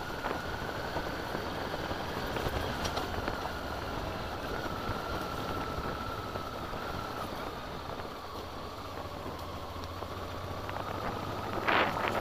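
Motorcycle engine running steadily at low speed on a gravel track, with a faint whine that slowly drops in pitch. Near the end a loud rush of wind noise hits the microphone.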